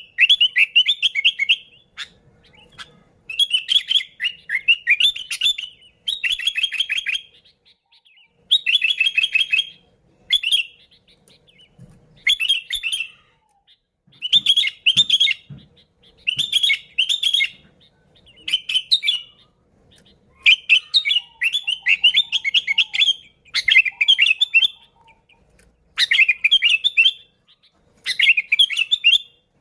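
Sooty-headed bulbul (kutilang) singing: short chirping phrases, each a second or two long, repeated with brief pauses between them.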